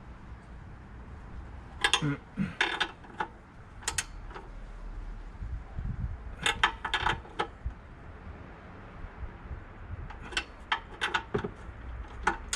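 Hand ratchet wrench clicking in three short bursts as exhaust bolts are tightened by hand.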